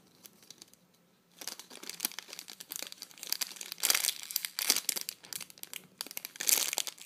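Clear plastic packaging bags crinkling as they are handled and squeezed, starting about a second in and running as an uneven crackle.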